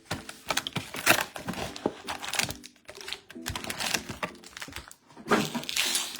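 Foil trading-card pack wrapper being torn open and crinkled by hand, a run of irregular crackles that is loudest a second before the end, over faint background music.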